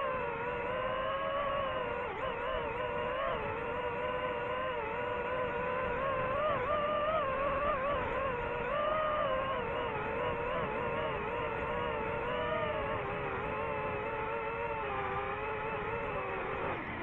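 DJI FPV drone's motors and propellers whining steadily, the pitch wavering up and down as the throttle changes in flight.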